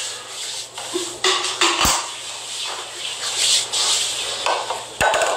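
A spoon scraping and clinking against a cereal bowl, with two dull thumps, about two seconds in and near the end.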